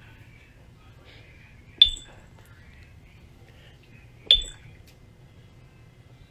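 Two sharp, ringing clinks about two and a half seconds apart, over a faint low hum.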